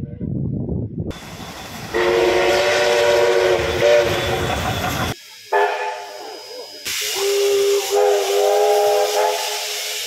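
A steam locomotive's whistle blowing two long blasts, several pitches sounding together, over loud hissing of steam from the cylinder drain cocks as the engine pulls away.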